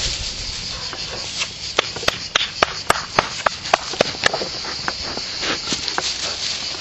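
Steady high-pitched chirring of field crickets. Between about two and four seconds in comes a quick run of about ten sharp clicks or taps, roughly three a second.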